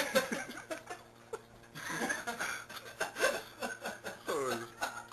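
People laughing and snickering in short bursts, over a steady low hum.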